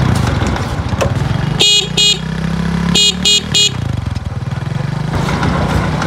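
Small motorcycle engine running at road speed, heard from on the bike. A horn gives two short beeps about a second and a half in, then three more quick beeps about three seconds in.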